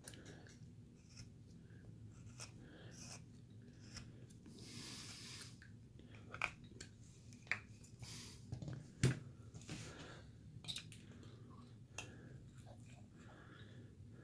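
Hand carving blade cutting small chips from a basswood figure: faint, scattered crunching cuts and clicks, with one longer scraping cut about five seconds in and a sharper click about nine seconds in.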